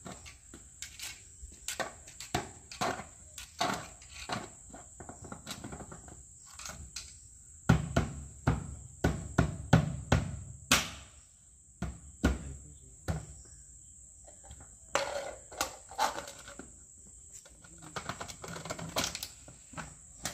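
Crickets chirring steadily, with many scattered clicks and knocks and a stretch of heavier low rumbling knocks around the middle.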